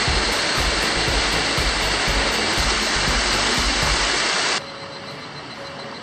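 Loud, steady rushing of a cascading mountain stream, with low buffeting rumble mixed in. It cuts off abruptly about four and a half seconds in, leaving a much quieter background.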